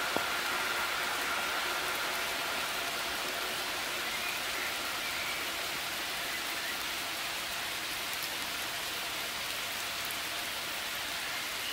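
Steady rain hiss on foliage and track ballast, with the faint tones of a receding ICE high-speed train fading out over the first few seconds. A single click sounds just after the start.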